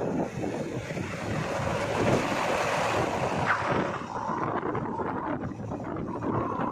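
Diesel engine of a JCB 3DX backhoe loader driving on the road, mixed with heavy wind buffeting on the microphone of a moving camera. About four seconds in the sound changes character, with the wind dropping back and the engine and road noise coming through.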